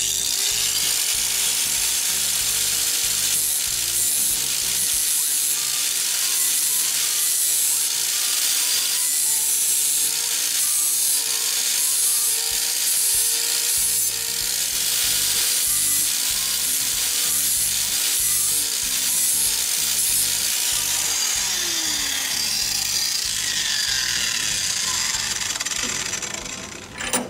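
Angle grinder with a flap disc grinding the cutting edge of a steel mulching mower blade held in a vise: a loud, steady grinding hiss with a motor whine, running down near the end.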